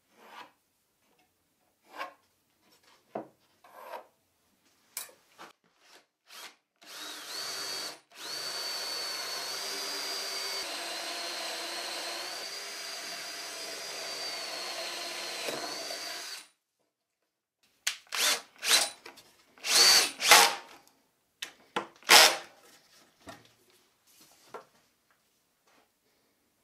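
A few short pencil scratches on wood, then a cordless drill runs steadily for about ten seconds, boring a hole into a plywood workbench apron, with a high motor whine over the cutting noise. Near the end come several short, louder noises, the loudest of the clip.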